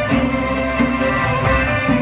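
Traditional Malay folk dance music playing as the accompaniment to a stage dance.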